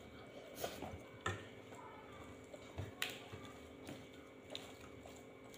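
Quiet eating at a table: a scattered handful of soft clicks and taps from hands, food and plates, and chewing.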